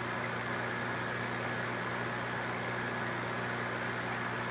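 Steady hum of running electrical equipment: a low electrical buzz under an even fan-like hiss, unchanging throughout.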